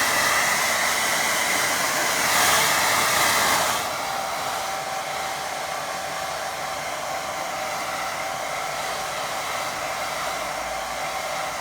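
Hair dryer blowing steadily to dry wet watercolour paint. It becomes a little quieter and its whine lower about four seconds in.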